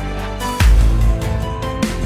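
Background music: an electronic track with held synth notes, a beat, and a heavy deep bass hit about half a second in.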